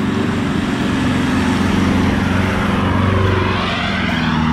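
Land Rover Defender 110 driving past on a loose gravel track: its engine running steadily while its 33-inch Toyo Open Country mud-terrain tyres crunch over the stones.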